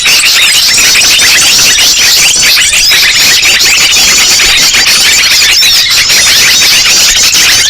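A dense, loud chorus of many small songbirds chirping and trilling at once, with rapid overlapping calls that never pause. This is a bird-luring (pikat) recording of noisy birds.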